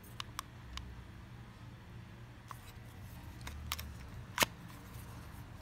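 Light clicks and taps from a plastic handheld fan being handled: a few soft clicks in the first second and one sharper click about four and a half seconds in.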